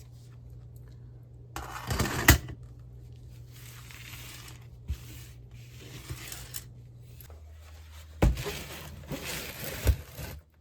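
Handling noise over a steady low hum: bursts of scraping and rustling with sharp knocks, loudest about two seconds in and again from about eight to ten seconds.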